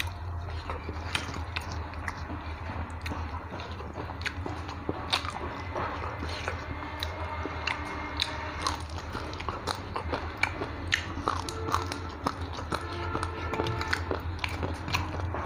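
A person chewing and biting food close to the mic, with many small sharp crunches and mouth clicks, over a steady low hum.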